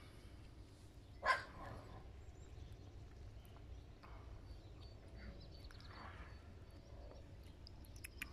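Five-week-old puppy giving one short, loud yelp about a second in, followed by a few fainter whimpers. A couple of sharp clicks near the end.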